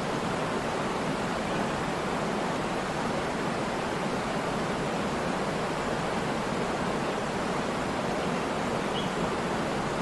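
Waterfall: water falling and rushing as a steady, even hiss.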